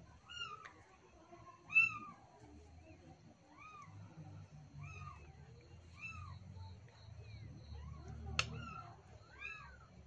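A cat mewing over and over in short mews that rise and fall in pitch, about one a second, with a single sharp click near the end.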